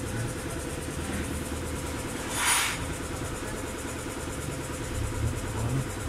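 Steady low rumble of an idling engine, with a short hiss about two and a half seconds in.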